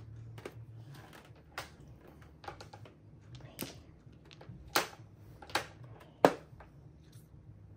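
Mahjong tiles clacking as they are set down on the table: about seven sharp clicks a second or so apart, the loudest just after six seconds in.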